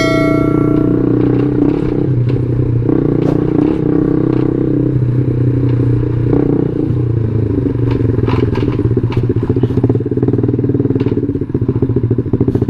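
Yamaha New Jupiter MX 135's single-cylinder four-stroke engine running steadily while riding, with scattered clicks and rattles. A brief high ringing tone fades out in the first second.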